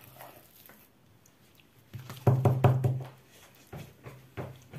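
Metal spoon knocking several times in quick succession, about two seconds in, as curd-and-cheese filling is scooped from a plastic bowl and put onto lavash. A few fainter knocks follow near the end.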